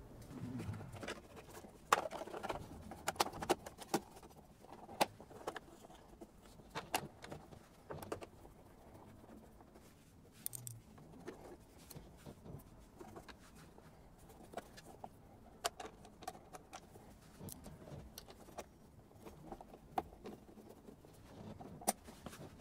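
Scattered light clicks, taps and rattles of a plastic cover and its fasteners being handled and fitted under a motorcycle.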